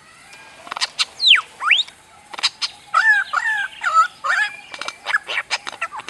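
Superb lyrebird mimicking laser-gun sounds: two falling "pew" sweeps about a second in, then a run of sharp clicks and quick warbled notes.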